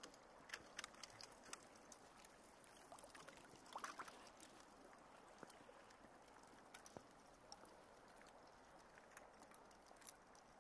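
Near silence: a faint hiss with scattered soft ticks.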